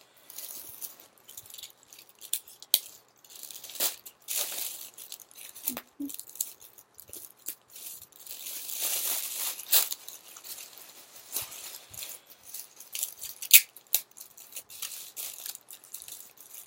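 Pink tissue paper crinkling and rustling as it is handled and tucked around a gift in a gift bag, in irregular bursts of crackling, the longest about halfway through.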